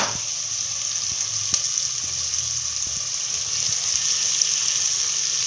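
Beef and sliced onions sizzling steadily in hot oil in a pot, frying on the way to golden brown. A sharp click at the start and a fainter one about a second and a half in.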